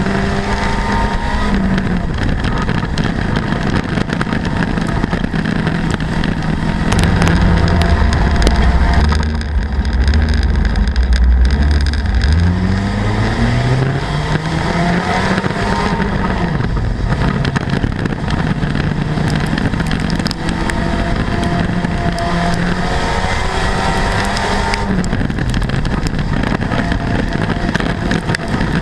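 A front-wheel-drive dirt-track race car's engine heard from inside the cockpit at racing pace, its revs falling and climbing again and again. A louder low rumble lasts several seconds about a third of the way in, then the revs climb steeply.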